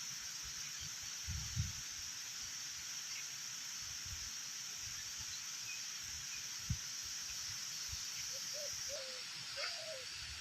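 Outdoor nature ambience: a steady high-pitched hiss like an insect chorus, a few soft low thumps, and a handful of short wavering animal calls about a second from the end.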